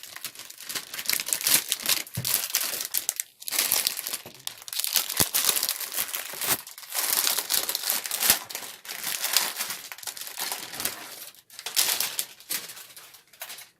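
Thin plastic protective film crinkling and tearing as it is peeled off a new keyboard, in irregular crackling bursts with brief pauses.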